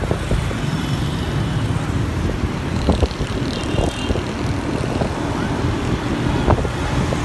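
Steady low rumble of a motorbike riding through city traffic, with the road and passing vehicles mixed in.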